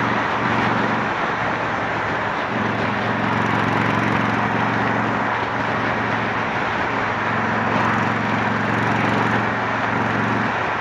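Honda Shadow 750's V-twin engine running at cruising speed through an aftermarket Torbal 3-inch sport exhaust, heard with heavy wind noise. The steady engine note weakens briefly about a second in and again around five and a half seconds.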